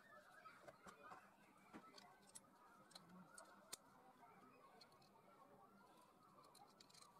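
Near silence, with a few faint small clicks and ticks scattered through it from the folding saw's metal fittings being handled.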